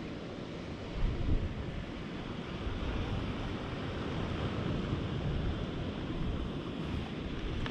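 Wind buffeting the camera microphone: a steady rushing with low, gusty rumbles, loudest about a second in.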